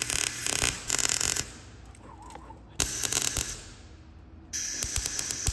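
MIG welder arc crackling in three short bursts of stitch welding on the thin sheet-metal underbody of a 1972 Toyota Corolla, the gun stopping between welds so the thin metal doesn't burn through. The first burst lasts over a second, the second under a second, and the third starts near the end.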